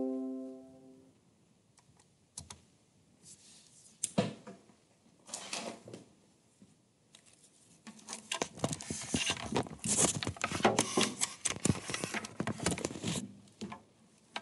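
A musical note fades out at the start. Then come scattered clicks and rustling, which thicken into a steady crackling rustle from about eight seconds in until shortly before the end.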